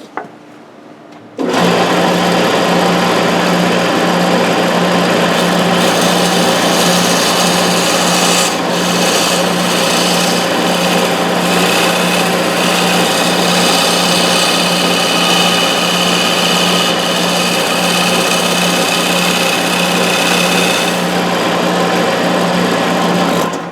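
Wood lathe running with a flat scraping tool cutting the spinning wooden finial to round its edges and clean up tear-out: a steady motor hum under loud scraping noise. It starts abruptly about a second and a half in and stops just before the end.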